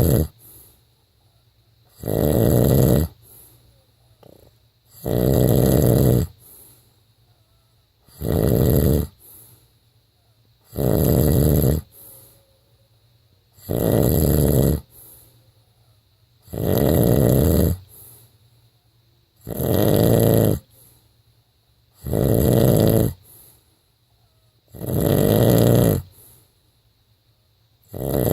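A man snoring in his sleep, one loud snore about every three seconds, about ten in all, with faint breathing between them.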